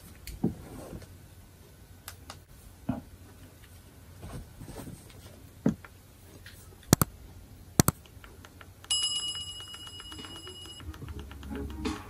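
Scattered sharp clicks and taps on a quiet background, then a steady electronic tone lasting about two seconds; low music begins near the end.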